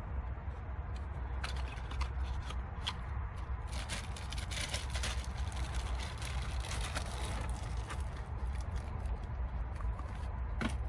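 Clicks and scraping of parts and plastic being handled by hand during the ignition switch job, busiest for a few seconds in the middle, over a steady low hum.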